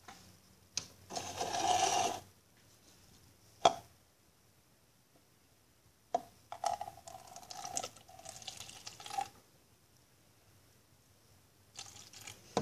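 Cap twisted off a plastic bottle of apple cider vinegar, with a sharp click about three and a half seconds in. Then vinegar is poured from the plastic bottle into a plastic tub for about three seconds, from about six seconds in.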